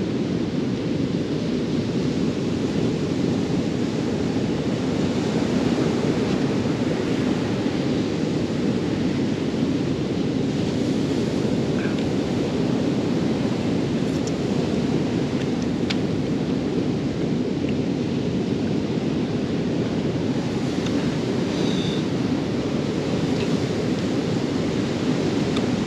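Steady low rumble of surf and wind, even in level throughout.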